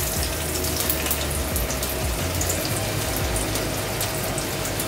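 Chopped ginger and garlic sizzling in hot oil in an aluminium pan: a steady hiss with many small scattered pops.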